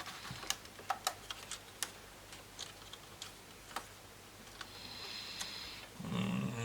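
Light, irregular clicks and taps of small plastic and metal laptop parts being handled during disassembly, about a dozen in the first few seconds, then a brief faint hiss and a louder rustle near the end.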